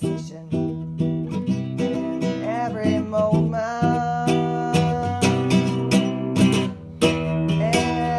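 Background music led by acoustic guitar, strummed and plucked, with a brief drop in level about seven seconds in.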